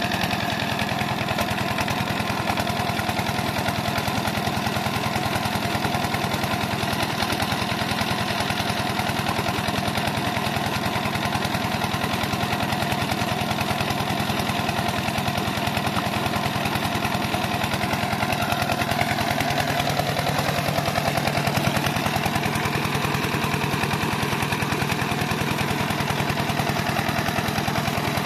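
Lister-type single-cylinder diesel engine running steadily, driving an irrigation water pump, with water gushing from the pump's outlet pipe. Its note shifts slightly lower about two-thirds of the way through.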